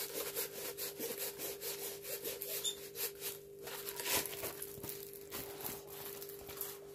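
Rustling and rubbing as a plastic-covered diamond painting canvas is rolled up and handled: a string of short scrapes and crinkles over a faint steady hum.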